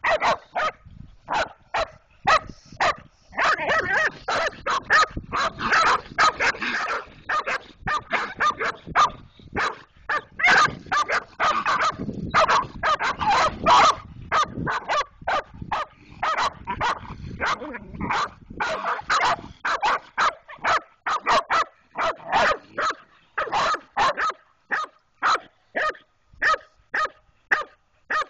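Young cur coon dogs barking hard and continuously, baying at a raccoon. Short, sharp barks come about twice a second at times and crowd together into dense flurries at others.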